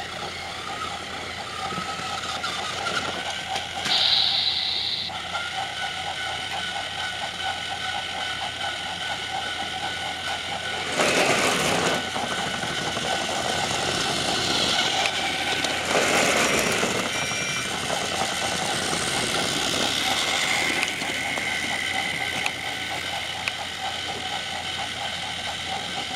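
Battery-powered Trackmaster toy train motors whirring steadily as the engines run on plastic track, with two louder rattling bursts, about eleven and sixteen seconds in, and a brief high tone about four seconds in.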